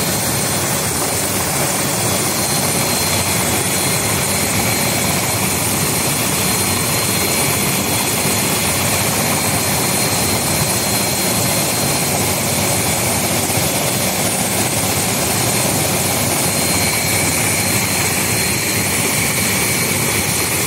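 Military light helicopter's turbine engine running on the ground with the main rotor turning: a loud, steady rush with a thin high whine.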